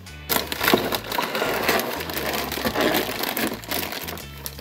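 A hand rummaging inside an opened cardboard toy box, a dense crackling and scraping of cardboard and plastic packaging that dies away near the end, over light background music.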